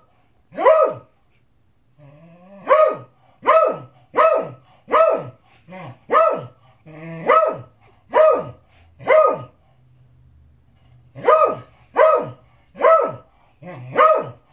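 A beagle barking over and over, one sharp bark about every three-quarters of a second, with a short pause a little over halfway through before the barking resumes. It is demand barking: the beagle wants his dinner.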